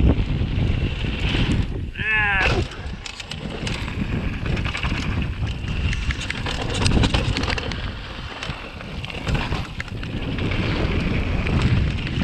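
Rushing whitewater and wind buffeting the microphone, with a short yell about two seconds in.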